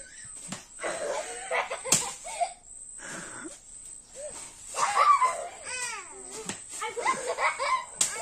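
Young girls laughing, shrieking and calling out as they play, with a sharp smack about two seconds in and another near the end.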